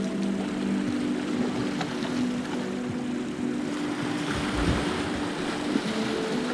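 Wind and sea surf washing against the rocks, heard as a steady rush on a body-worn camera's microphone, with faint sustained low tones underneath.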